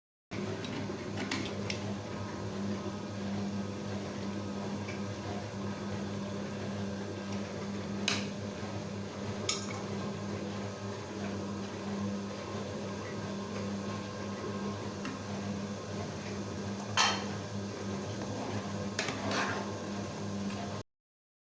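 Kitchen utensils clinking and knocking against cooking pots now and then, about four sharp knocks in all, over a steady low hum.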